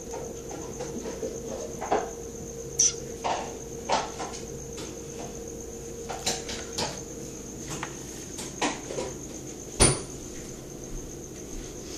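Irregular light taps, clicks and scrabbling of a baby squirrel's claws moving over a laptop and tabletop and bumping the small objects on it, with a sharper knock about ten seconds in. A steady high-pitched tone runs underneath.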